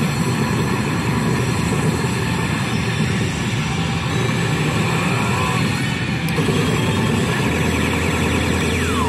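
Loud, steady din of a pachinko parlor: the massed noise of the hall's machines, mixed with this pachislot machine's own battle sound effects.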